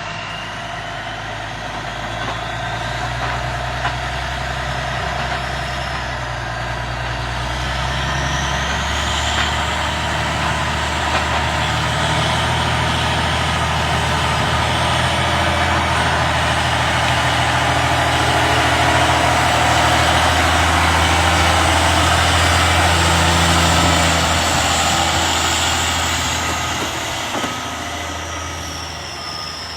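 Detroit Diesel Series 60 inline-six diesel of a Pacific P16 logging truck running under load on its first load since the rebuild. It grows louder to a peak and eases off near the end, with a high whine that climbs over the first several seconds and falls away near the end.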